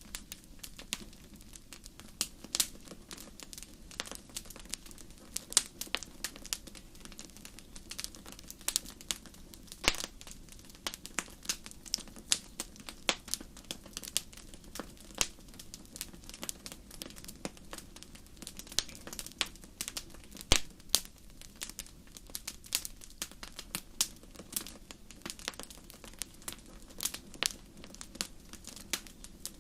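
Wood fire crackling, with irregular sharp pops and snaps, several a second, over a steady low background rush.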